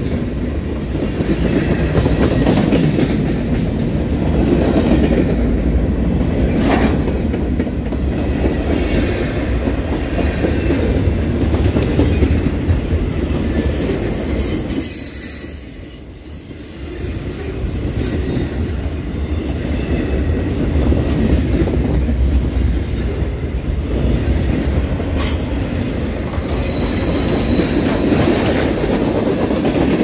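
Freight cars rolling past at close range: steady noise of steel wheels on rail, with a high-pitched wheel squeal for several seconds in the middle and thinner squeals near the end. A couple of sharp knocks, and a brief drop in the noise about halfway.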